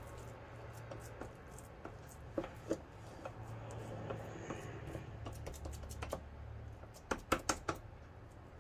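Quiet hand-work of shaping minced-meat cutlets and laying them on waxed paper: soft handling noises with scattered light clicks and taps, the sharpest few about seven seconds in, over a faint low hum.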